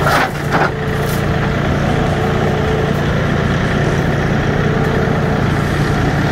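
Diesel engine idling steadily at a constant low pitch. In the first second an aluminium loading ramp clanks twice, about half a second apart, as it is set in place.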